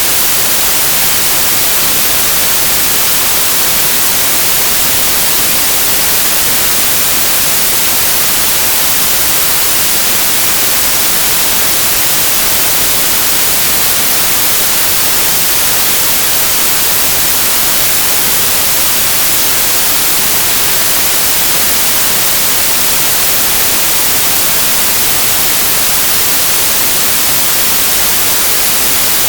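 Steady, unchanging white-noise hiss, strongest in the high end, with no breaks or events.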